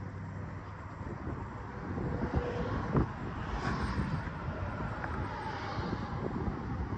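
Outdoor ambience: wind buffeting the microphone over a faint, distant engine drone, with one sharp click about three seconds in.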